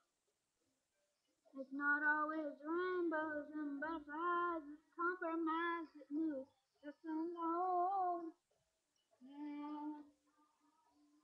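A high, young-sounding voice singing a melody with no accompaniment, in short phrases with brief pauses. It starts about a second and a half in and stops shortly before the end.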